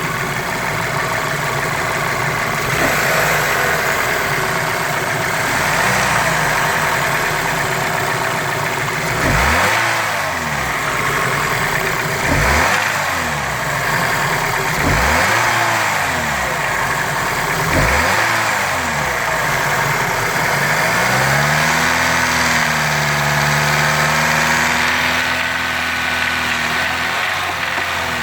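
Volkswagen Passat B6's 1.8 TSI four-cylinder turbo petrol engine idling and blipped four times, then held at raised revs for a few seconds. It has a knock that comes in between 2000 and 3000 rpm, of unknown cause, with the timing chain, guides and tensioners already renewed.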